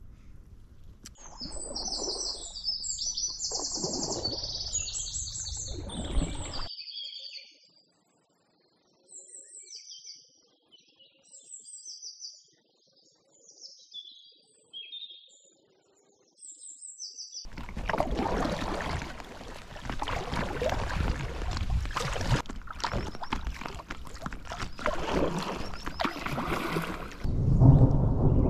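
Small birds chirping in short, high, repeated phrases. About seventeen seconds in, a loud rushing storm noise sets in, and a deep thunder rumble starts near the end.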